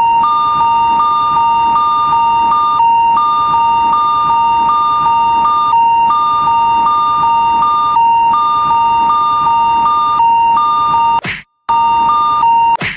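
Electronic Japanese railroad crossing warning alarm ringing: a steady tone with a higher tone pulsing on top, about one and a half strokes a second. Near the end it cuts out briefly after a short noisy burst, then resumes.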